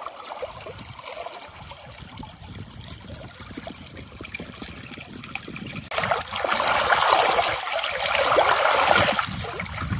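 A shallow moorland stream trickling over stones. About six seconds in, a plastic bottle is held in the current to fill, and the water rushes much louder for about three seconds before easing.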